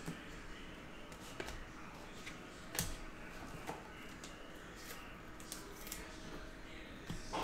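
Glossy trading cards being handled on a tabletop: soft sliding and scattered light clicks and taps as cards are picked up and set down, with a sharper tap a little under three seconds in and another near the end.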